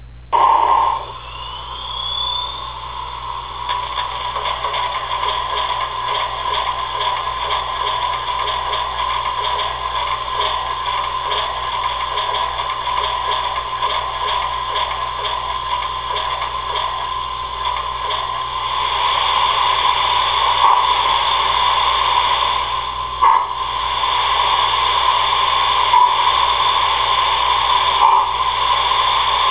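Sound system of a Tenshodo HO-scale D51-498 model steam locomotive playing through its small speaker: a short loud blast at the start, then steady steam hissing and chuffing that grows louder later on as the engine starts off and runs forward.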